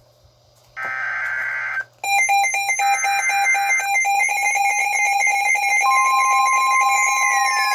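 NOAA Weather Radio SAME data bursts, a harsh warbling buzz about a second long, sounding twice, announcing a new severe thunderstorm warning. From about two seconds in, the Midland weather radios' alert alarm beeps rapidly, the steady 1050 Hz warning tone joins about six seconds in, and falling siren-like sweeps begin near the end.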